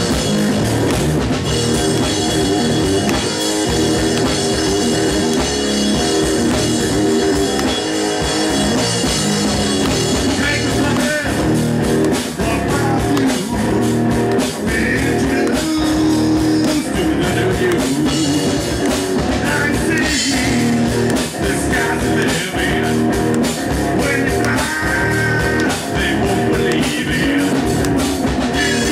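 Live punk rock band playing a song on electric guitar, bass guitar and drum kit.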